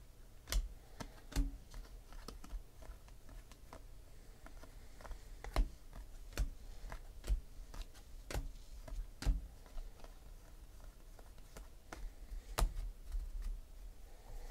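Panini Classics football cards being flipped through by hand, one at a time off a stack: a string of irregular clicks and taps as card edges snap past one another.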